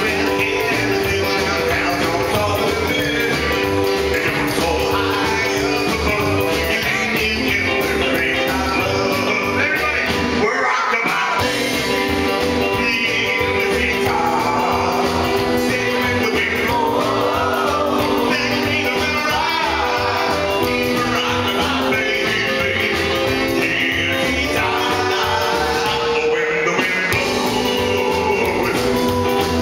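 Live rock and roll band playing: a male lead singer over electric guitar and saxophone with a rhythm section, with a short break in the low end about a third of the way through.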